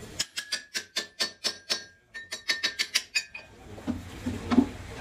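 Rapid sharp metallic taps on a cast-iron truck wheel hub as it is set in the lathe chuck, about five a second with a faint ring, broken off briefly halfway. Then a low machine hum comes back, with a dull knock near the end.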